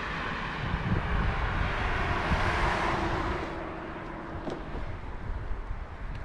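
A motor vehicle passing by outdoors, swelling to its loudest about two and a half seconds in and then fading.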